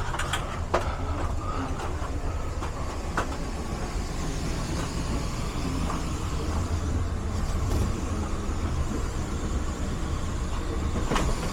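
Indoor air handler of a 2-ton HVAC system running with its blower on cooling: a steady low rumble with an airy hiss. A few light clicks of handling sound over it.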